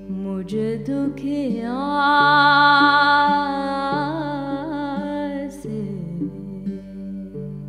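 A woman singing, her voice rising into a long held note with wavering ornaments from about two seconds in and tailing off near the end. Underneath, a long-necked fretted string instrument is plucked in a repeating drone pattern.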